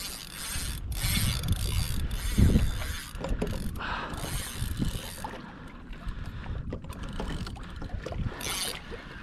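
The drag of a saltwater spinning reel ratchets steadily as a hooked fish pulls line off it in a fast run, which the angler takes for a wahoo-like run.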